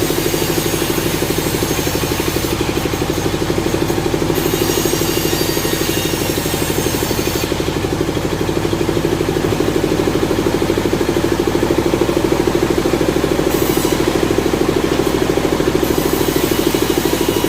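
Engine running steadily at an even speed, with a fast, regular pulse.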